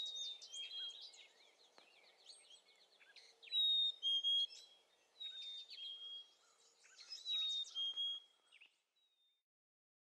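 Black-capped chickadees calling: several clear two-note 'fee-bee' whistles, each a high note dropping to a slightly lower one, mixed with short chips and a quick run of notes. The sounds stop about three-quarters of the way through.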